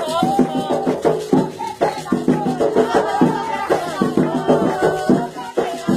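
Voices singing an Afro-Brazilian ritual song for the orixá Oyá, with rattles shaken in a steady rhythm beneath the chant.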